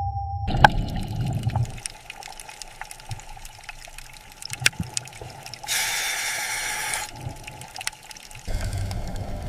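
Water trickling and dripping with scattered clicks. A loud hiss lasts about a second and a half midway, and a low rumble sits at the start and returns near the end.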